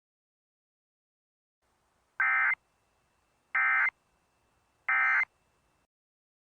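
Three short bursts of Emergency Alert System SAME digital data tones, the end-of-message code that closes an EAS alert. Each burst is about a third of a second long, and they are evenly spaced about 1.4 seconds apart.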